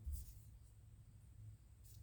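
Near silence, with a faint brief scratchy rustle and soft thump right at the start and a softer one near the end: a folding pocket knife being handled.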